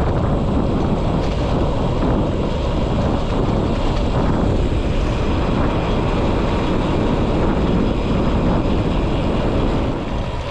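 Wind rushing and buffeting over a GoPro 9's microphone as the road bike rolls along at speed. The sound is loud and steady, and eases a little near the end.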